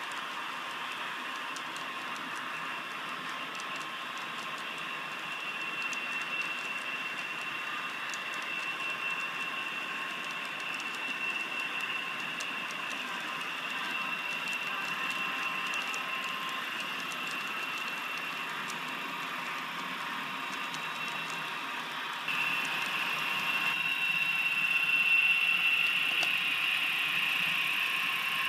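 HO scale model freight train running on the layout's track: a steady whine from the locomotives over the rolling of wheels on rail. It gets louder about two-thirds of the way through.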